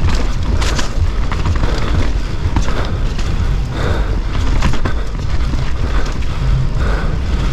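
Mountain bike riding fast down a dry dirt trail: a steady rumble of wind on the mount-camera microphone and knobby tyres on loose dirt, with the chain and frame clattering over bumps in short sharp knocks.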